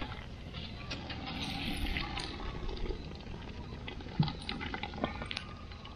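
Boil water draining and dripping back into the pot from a perforated metal strainer basket as it is lifted out, with light metal clinks and a single knock about four seconds in.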